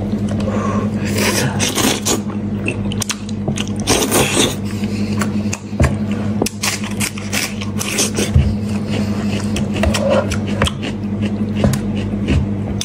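Hands tearing apart a sauce-coated braised animal head: wet pulling of meat, with many sharp clicks and crackles as bone and cartilage separate. A steady low hum runs underneath.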